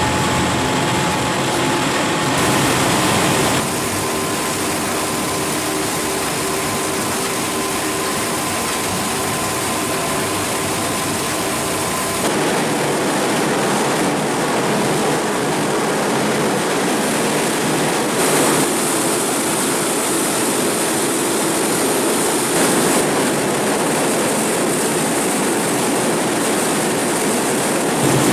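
Steady machine noise from citrus juice processing equipment running, with a few faint steady tones in it. The sound changes abruptly several times, about 3, 12, 18 and 23 seconds in.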